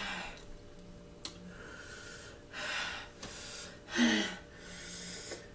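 A woman gasping and breathing hard through her open mouth, her mouth burning from very spicy instant noodles. There are several sharp, breathy gasps, and the loudest, about four seconds in, carries a bit of voice.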